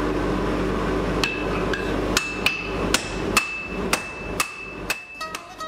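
Hand hammer and a striker's sledge beating red-hot iron on a steel anvil: about nine blows, roughly two a second, each ringing high and metallic. A steady low hum runs under the first two seconds, and plucked-string music comes in near the end.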